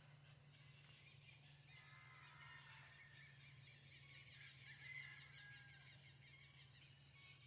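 Faint dawn birdsong: several small birds chirping and trilling, busiest in the middle, over a steady low hum.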